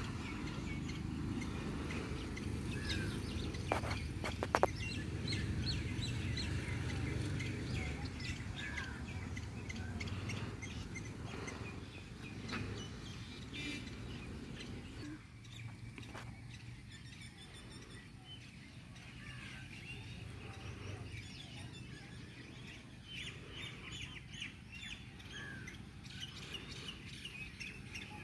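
Many small birds chirping and calling in short high notes throughout, over a low steady rumble that eases about halfway through. Two sharp clicks about four seconds in.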